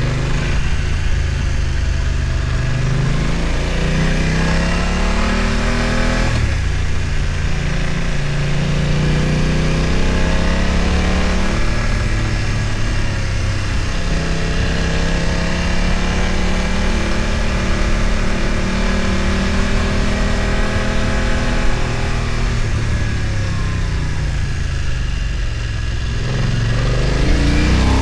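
BMW F900 XR's parallel-twin engine running under load on an uphill ride, its revs rising and then dropping sharply several times.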